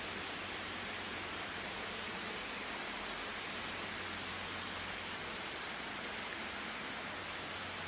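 Steady, even rush of hot-spring water running in a tiled bath hall, starting abruptly at a cut.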